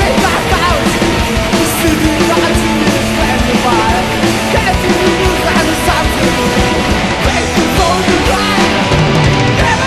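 Live progressive rock from a trio of electric guitar, bass and drums, playing loud and dense with no break.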